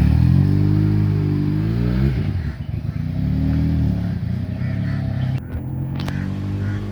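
400cc twin-cylinder motorcycle engine revving. Its pitch climbs over the first two seconds and then drops off, after which it runs unevenly at lower revs.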